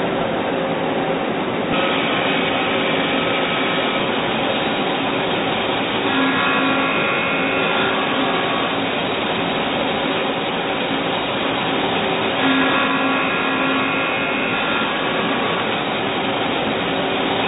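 Puma GT2100MS CNC lathe running: a steady mechanical hiss and hum, with a cluster of steady higher tones that comes in twice, about six seconds apart, for about two seconds each time.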